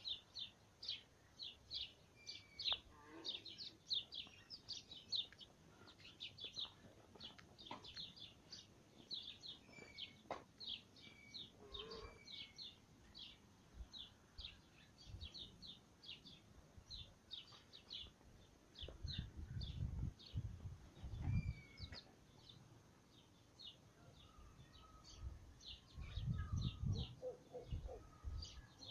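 Birds chirping: a steady run of short, high chirps, several a second. Two spells of low rumbling noise, about two-thirds of the way through and again near the end.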